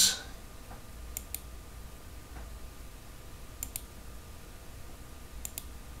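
Computer mouse clicking three times, about two seconds apart. Each click is a quick double tick as the button is pressed and released, over a faint steady room hum.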